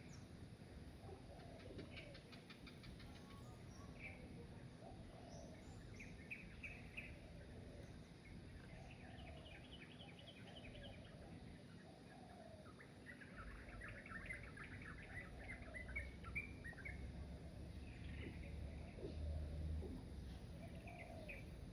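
Several birds chirping and calling, with short chirps and quick trills and some lower calls that slide in pitch. About halfway through, a low rumble comes in underneath.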